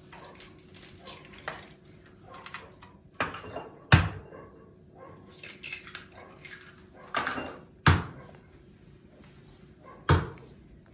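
Kitchenware being handled: dishes and utensils clatter, with sharp knocks about four, eight and ten seconds in.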